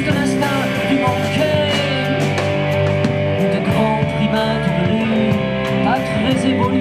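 Live rock band playing loudly: electric guitar and bass over a drum kit with frequent cymbal strokes, and a man singing into a microphone.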